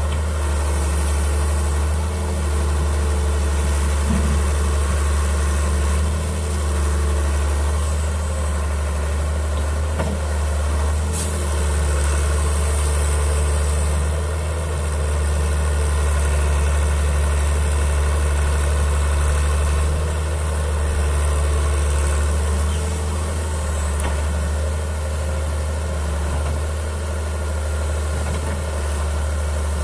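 Hitachi EX100WD wheeled excavator's diesel engine running steadily while the machine digs, its level rising and dipping a little as the boom, arm and bucket work. There is a single sharp click about eleven seconds in.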